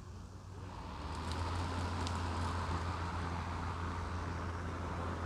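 Engine of a grass-cutting machine running, getting louder over the first second or so and then holding steady.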